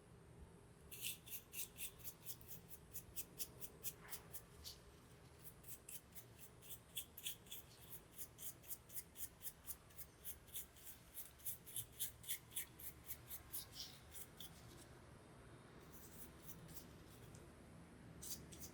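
Quiet, even hand strokes scraping or rubbing against a part of the fan, about three a second. They pause for about a second and a half near the end, then start again.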